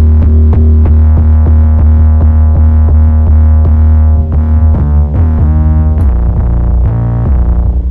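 Heavily saturated, distorted 808 bass synth playing a looping trap-style pattern, loud and dense in the low end, with short regular ticks on top and the bass pitch sliding and changing several times near the end.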